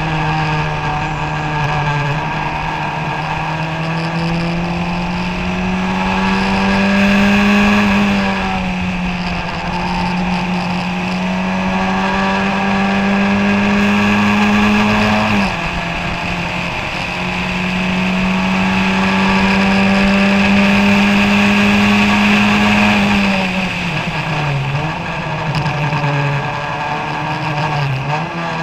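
Onboard sound of a 1991 Kookaburra Formula Ford 1600's four-cylinder Ford Kent engine under full throttle. The engine note climbs through the revs, drops sharply at gear changes about 8 and 15 seconds in, climbs again, then falls away as the driver lifts off, with quick blips on the downshifts near the end.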